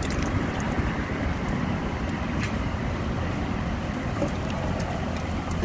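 Freshly cleaned goby being swished and rinsed by hand in water in a stainless steel bowl, a continuous sloshing with faint clicks, under steady wind noise on the microphone.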